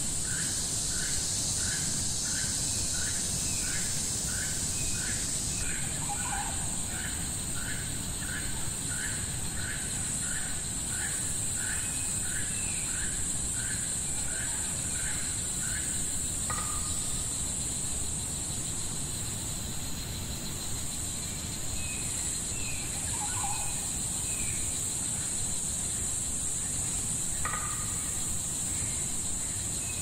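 Tropical rainforest ambience: a steady high-pitched drone of insects, with a bird repeating a short call about twice a second that stops about halfway through, and a few other scattered calls.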